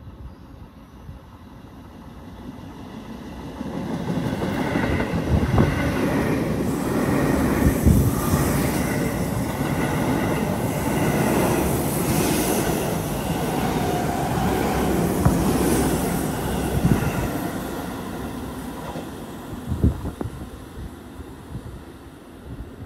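Seibu Ikebukuro Line electric commuter train approaching and running past at speed, getting louder over the first few seconds. Its wheels clatter over the rail joints, with sharp knocks every few seconds and a thin squeal. It eases off near the end.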